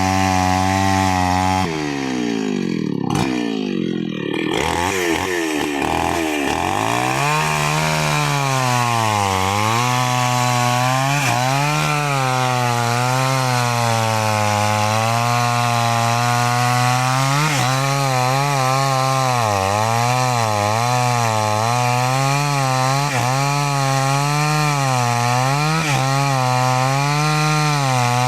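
New West 568 two-stroke chainsaw cutting kapok wood: the engine runs steady at high speed, sags and wavers about two seconds in, then its pitch rises and dips again and again as the chain bites into the trunk under load.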